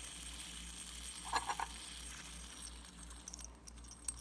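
Metal fidget spinner being handled and set spinning, with a short squeak about a second and a half in and a few light clicks near the end. Its bearing sounds rusty.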